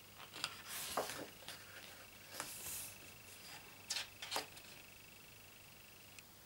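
A page of a photobook being turned by hand: a couple of soft paper swishes about one and two and a half seconds in, then two light clicks of paper or fingertips about half a second apart near the four-second mark.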